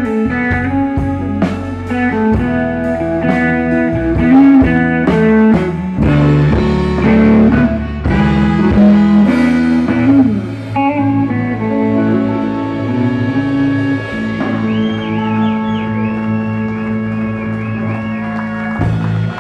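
Live blues band with electric guitars and drums playing, then from about halfway through holding one long closing chord that rings to the end, with high wavering notes played over it.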